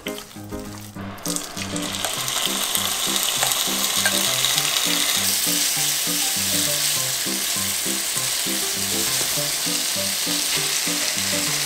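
Pieces of marinated pork jowl sizzling loudly as they pan-fry in oil, the steady sizzle starting about a second in. Soft background music underneath.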